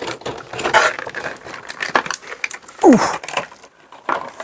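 Board game box contents being handled as the top layer is lifted out: a run of rustles, clicks and light clatters from cardboard and game pieces, with a short grunted "oof" about three seconds in.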